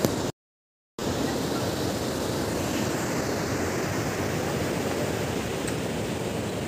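Sea surf breaking on a beach, a steady rush of waves. The sound cuts out completely for a split second near the start, then resumes unchanged.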